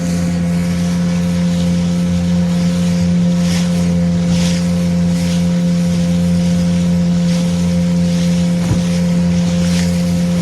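Small motorboat's engine running steadily at cruising speed, a constant drone, with water splashing and hissing along the hull every second or so as it crosses light chop.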